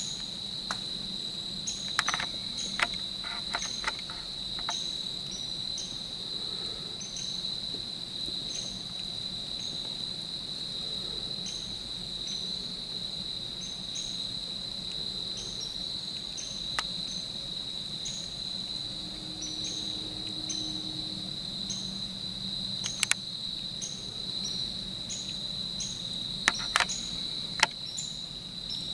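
Steady, high-pitched insect chorus droning at one pitch, with a fainter short chirp repeating above it about once or twice a second. A few sharp clicks near the start and again near the end.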